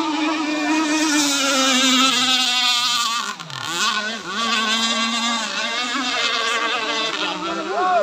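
Several remote-control racing powerboats running flat out, their engines making an overlapping high whine whose pitch rises and falls as the boats pass.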